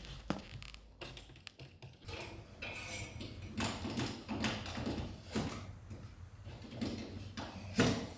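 A handful of separate knocks and clicks, irregularly spaced about a second apart, with one louder knock near the end.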